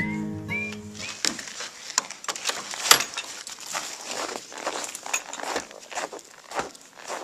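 The last sung note of an acoustic guitar song fades out within the first second, then irregular crunching and crackling, like steps in snow, goes on at an uneven pace.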